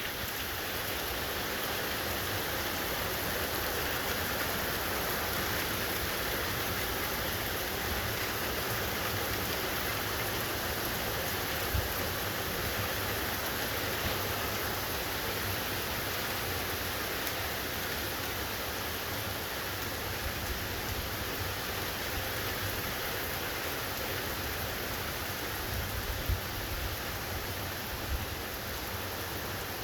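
Steady rain from a subtropical afternoon thunderstorm, falling as an even hiss. A few faint low knocks come now and then.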